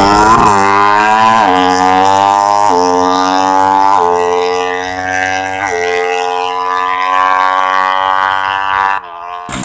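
Ported Suzuki Satria FU drag-bike engine at full throttle, the pitch climbing and dropping back with each of about five quick upshifts, then holding high revs as it pulls away. It cuts off abruptly near the end.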